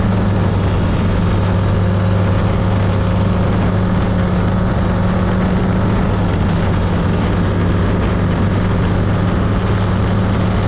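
468-cubic-inch big-block Chevy V8 in a Sanger V-drive hot boat running at steady speed, its engine note holding an even pitch over a steady rush of noise.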